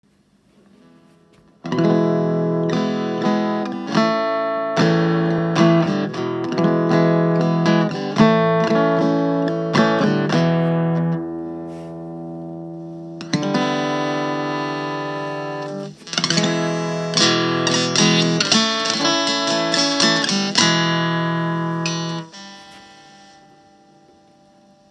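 Electric guitar played through a c1958 Watkins Westminster valve amplifier: strummed chords and picked notes begin about two seconds in. Near the middle a chord is left to ring and fade before the playing starts again, and the last chord fades out a couple of seconds before the end.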